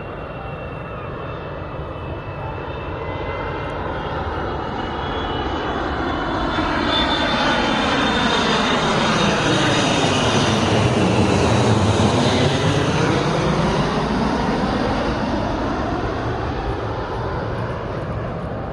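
Landing airplane passing low overhead on its approach: the engine roar and high whine build to a loud peak a little past the middle, then fade as it moves away.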